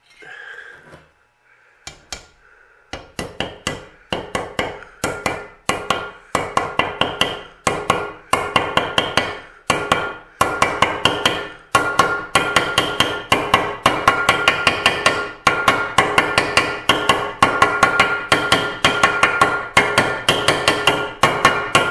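Ball peen hammer tapping rapidly and evenly around the edge of a greased roller bearing, driving it into a steel trailing arm's bearing bore. The steel-on-steel taps ring, starting light about two seconds in and growing louder.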